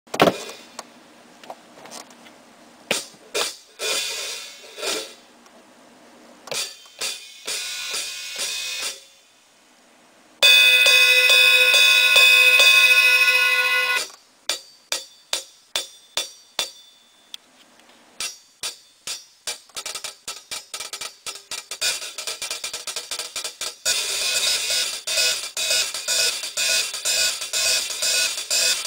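Zildjian Z3 cymbals struck one at a time, each ringing out. About ten seconds in, a loud crash is left ringing for about three and a half seconds and then cut off suddenly. Spaced single hits follow, then a steady fast cymbal rhythm that grows fuller near the end.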